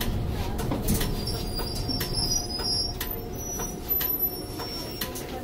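Cabin sound of a 2007 NABI 60-BRT articulated bus with a Cummins Westport ISL G natural-gas engine pulling away from a stop: a low running rumble with scattered rattles and clicks.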